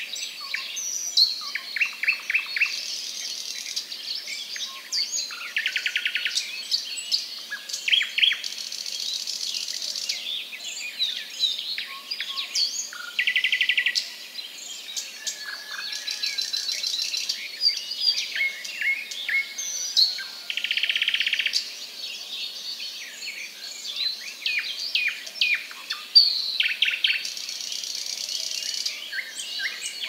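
Wild forest birds chirping and calling over one another, with short buzzy trills about a second long coming back every few seconds.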